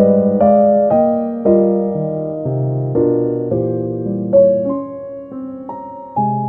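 Slow, gentle piano music: sustained chords and single notes, a new note or chord struck every half second to a second or so.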